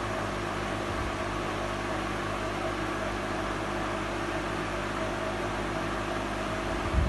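Steady machine hum and hiss from an appliance running in the room, holding several fixed tones without change. A brief low thump comes near the end.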